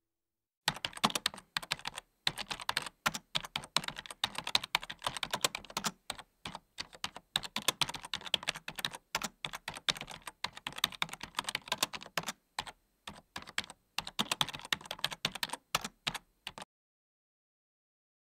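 Computer keyboard typing: quick, irregular keystrokes in runs broken by short pauses, stopping about two seconds before the end.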